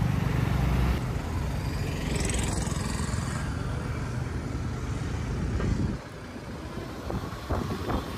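Motorcycle engine running with road and traffic noise during a ride, the engine note dropping and quieter about six seconds in.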